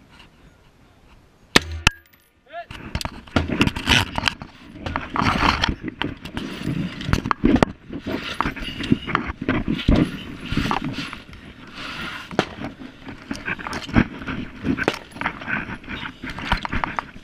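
Gear and clothing rustling and knocking close against a body-worn camera as the shooter moves. Two sharp, loud knocks come a little before two seconds in, then a dense run of irregular scuffs and clatters.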